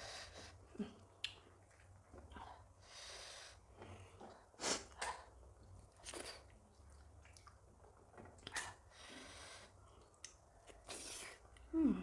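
Close-miked eating sounds: soft chewing and mouth clicks from a meal of maize dhido and curry, with several short hissing breaths. Near the end there is a brief hummed sound that falls in pitch.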